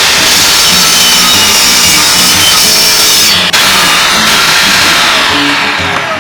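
A woodworking power tool running loudly as it works wood, with a brief break about halfway and easing off near the end.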